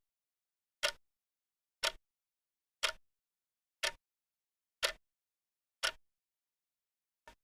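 Timer tick sound effect: sharp clock-like ticks about once a second with dead silence between them. Near the end one tick is skipped and a shorter, fainter tick comes late.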